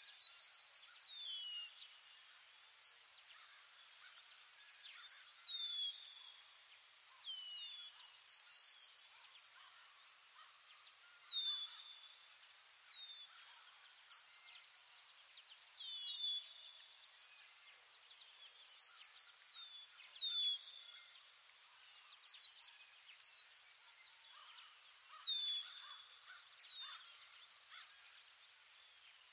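Ambient forest soundtrack: a steady, pulsing insect chirr with short downward-sliding bird calls, often in pairs, every second or two.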